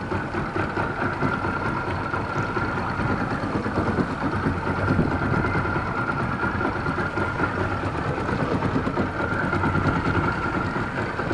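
A small boat's outboard motor running steadily under way, with a constant high whine over its drone.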